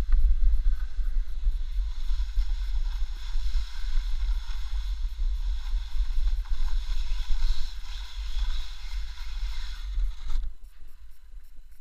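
Wind buffeting a helmet-mounted camera's microphone with a low rumble, over the hiss of sliding across snow; the hiss cuts off about ten and a half seconds in, when the motion stops.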